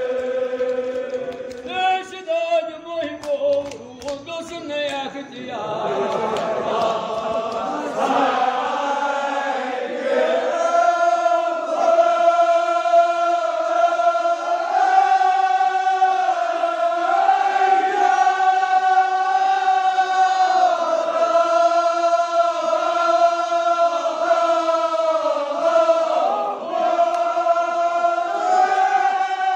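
A group of men chanting a Kashmiri marsiya, a Shia elegy, in unison, holding long notes that shift slowly in pitch. The chant breaks up for a few seconds early on, then swells back and is fuller and louder from about ten seconds in.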